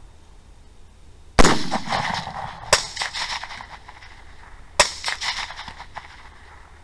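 Three suppressed 6.5 Grendel rifle shots: the first and loudest about a second and a half in, the next about a second later, the third two seconds after that, each with a short trailing echo.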